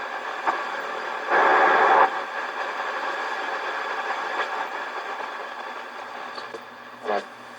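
Knight Kit R-100 shortwave receiver hissing with static between broadcasts, with a louder rush of noise lasting under a second about a second and a half in.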